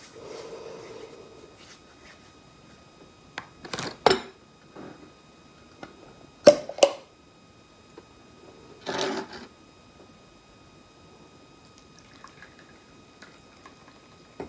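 A bottle being handled on a table: a few sharp knocks and clicks, the two loudest about six and a half seconds in, and a brief scraping rustle a couple of seconds later. Near the end a brown drink is poured from the bottle into a ceramic bowl, a faint trickle.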